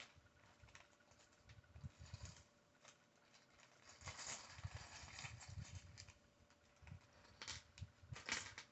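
Faint rustling of a clear plastic bag and small Lego bricks clicking against each other as a hand rummages through the bag, with a few soft knocks on the table.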